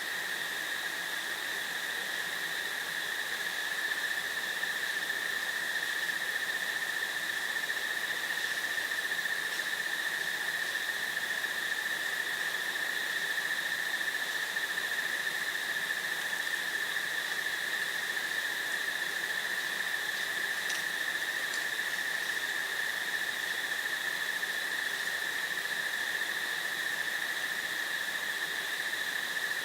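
Crickets chirring in a steady chorus: a continuous high drone with no breaks, over a light hiss of breeze, with a few faint high chirps about two-thirds of the way through.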